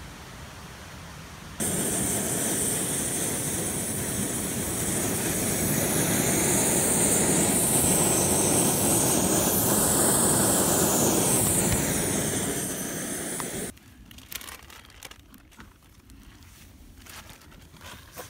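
Snow Peak GigaPower canister stove burning with a steady hissing roar. It starts suddenly about a second and a half in and cuts off about twelve seconds later. Light clicks and rustles follow.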